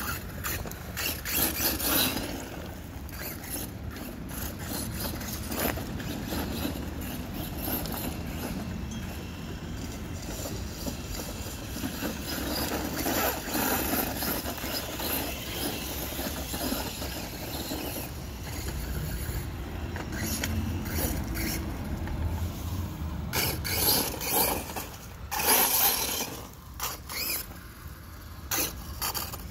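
Redcat Volcano EPX RC monster truck with a 3500KV brushless motor on 3S running over gravel: the motor and drivetrain whine rises and falls with the throttle, and the tyres crunch and scrape on the gravel. Louder bursts come near the end as the truck drives close.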